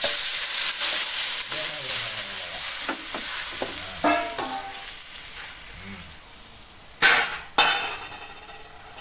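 Ground chili, garlic and candlenut spice paste hitting hot oil in an aluminium wok: a loud sizzle that starts at once and slowly dies down as it is stirred with a spatula. Two brief louder noises come near the end.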